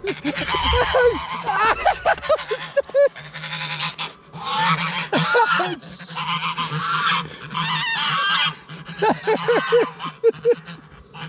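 A small flock of domestic geese honking loudly and repeatedly together, many short calls overlapping: the flock's triumph chorus around the goose that has just driven off a stranger.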